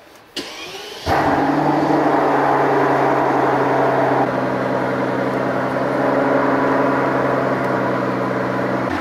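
Mercedes-AMG S65's 6.0-litre twin-turbo V12 starting: it catches about a second in and settles into a steady idle.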